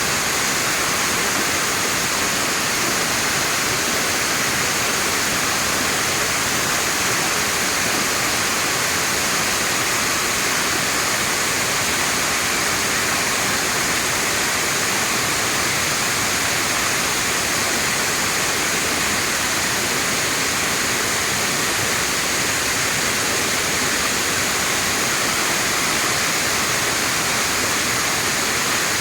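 Waterfall: falling water rushing in a steady, unchanging wash of noise.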